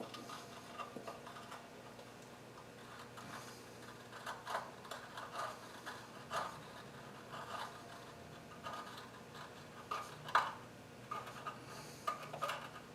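Scattered light clicks, taps and scrapes of hand tools and metal parts being handled during engine work, coming at irregular times with no steady rhythm.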